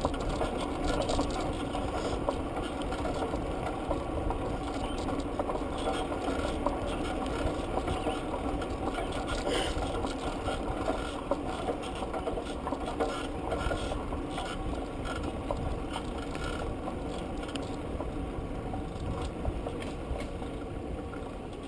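A bicycle rolling along a paved path: a steady rumble of tyres and rattle of the bike, with many small clicks and knocks throughout.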